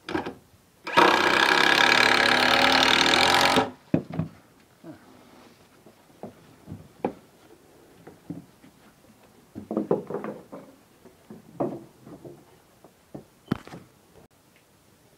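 Handheld power tool running at a steady pitch for about two and a half seconds, starting about a second in and stopping abruptly. Scattered knocks and clunks follow.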